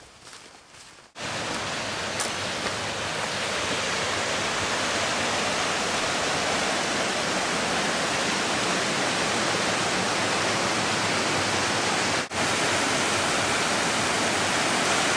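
Rushing water, a steady, even rush that cuts in suddenly about a second in and drops out for an instant near the end.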